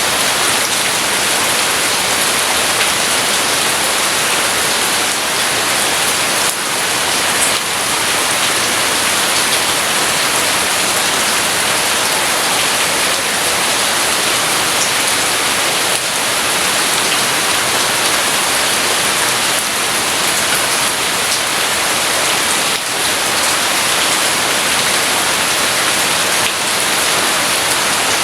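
Steady heavy rain falling, an even dense hiss with no thunder heard.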